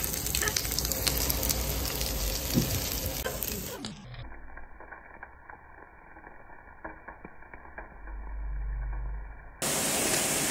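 Meat sizzling on a grill with small clicks of utensils. About four seconds in the sound drops abruptly to a quieter, duller stretch with a low hum, and the sizzling comes back suddenly near the end.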